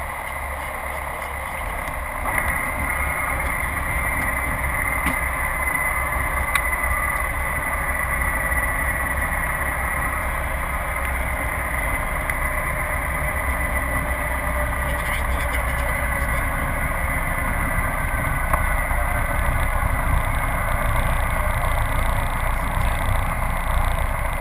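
Light single-engine aircraft's piston engine and propeller running steadily, heard inside the cabin as the plane rolls along the runway. The engine noise steps up a little about two seconds in.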